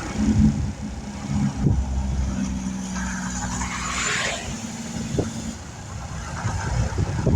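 Interstate traffic passing close by: a steady engine drone with a vehicle rushing past about four seconds in.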